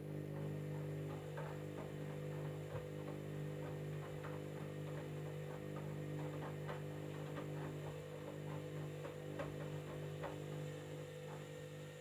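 Candy washing machine running mid-cycle: a steady motor hum, with scattered light clicks and knocks over it, fading near the end.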